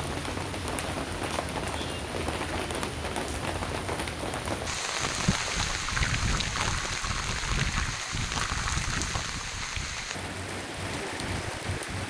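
Heavy rain pouring onto a paved street, a steady hiss made of many drop impacts. Its tone changes abruptly about five seconds in and again about ten seconds in.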